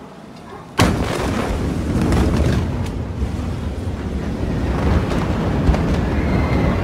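Blast wave from a warehouse explosion striking the filming spot: one sudden loud bang about a second in, then a long low rumble with scattered cracks and clatter.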